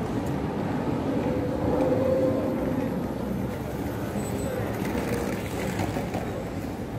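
Steady street traffic at a busy city intersection, including a city bus driving through. The sound swells about two seconds in.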